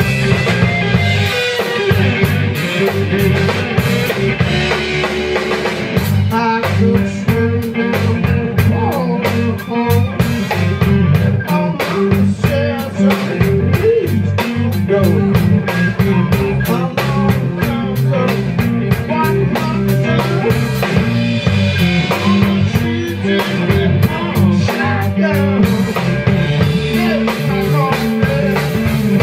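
Live blues-rock band playing: electric slide guitar played with a brass slide, over a drum kit beat that grows more regular about six seconds in.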